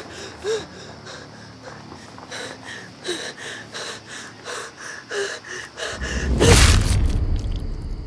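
A person panting in quick, ragged gasps with small whimpering cries. About six seconds in, a loud burst of noise with a deep rumble cuts across it.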